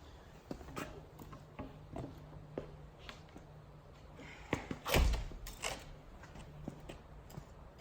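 Wooden boards being handled: scattered light knocks and clicks of lumber, with one heavy thud about five seconds in.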